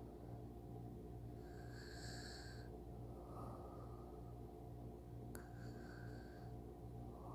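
A person snoring softly in sleep, faint slow breaths every couple of seconds over a low steady hum, with one small click about five seconds in.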